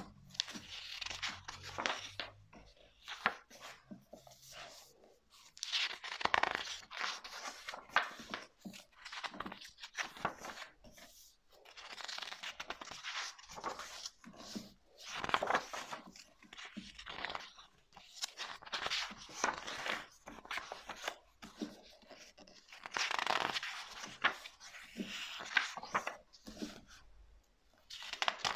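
Pages of a large softcover book being turned one after another: a series of papery rustles and swishes, a second or so each, with short pauses between.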